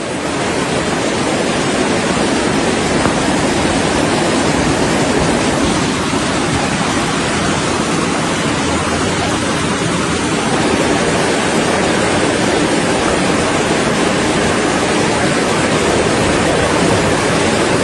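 Steady, dense rushing of water, typical of a flash-flood torrent pouring down a street, holding at an even level throughout.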